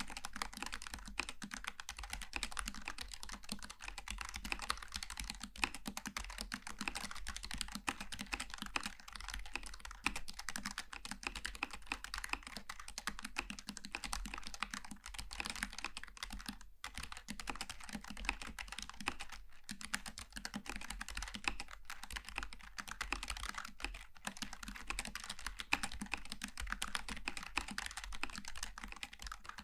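Continuous fast typing on a Logitech G915 TKL low-profile mechanical keyboard with GL Tactile switches: a dense run of key clicks and clacks, with a few short pauses between bursts.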